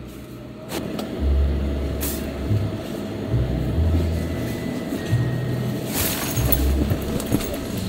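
Background music with a deep bass line that steps from note to note.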